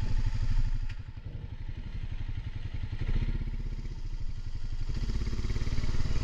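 Honda ATV engine running close under the rider. It eases off about a second in, then picks up again around three seconds and builds toward the end.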